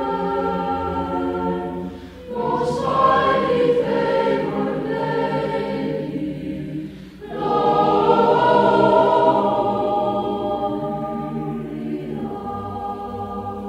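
Choir singing slow, held chords in long phrases, with short breaks about two and seven seconds in, growing softer toward the end.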